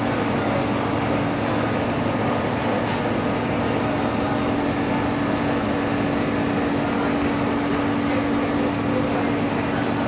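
Steady machine hum of a refrigerated display cabinet running, with a constant low drone and an even hiss that do not change.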